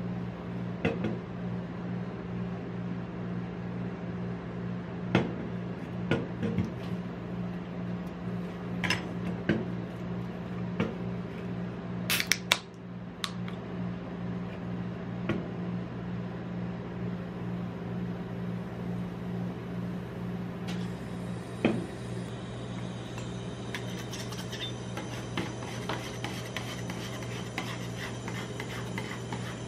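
Steady low hum of a rolled-ice-cream cold plate under handling sounds: scattered clicks and taps of an aluminium soda can and metal spatulas on the steel plate, with a sharp crack as the can's pull tab is opened about twelve seconds in. In the last third, metal spatulas scrape and tap on the plate as the orange soda is chopped and spread on the freezing steel.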